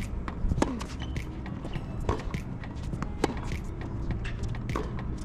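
Tennis ball struck back and forth by racquets in a practice rally: four sharp hits, about one every second and a half, each with a short falling ring, with lighter taps and clicks in between.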